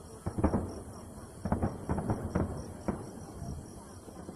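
Fireworks going off, a rapid irregular string of bangs with some echo, about seven in all and bunched in the middle. Crickets chirp steadily throughout.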